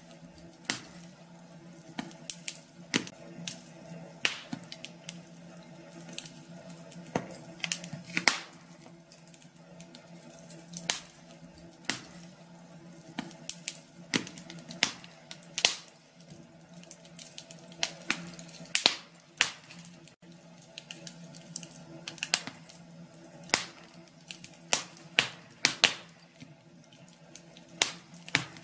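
Wood fire in a fireplace crackling, with irregular sharp pops and snaps several times a second over a low, steady background.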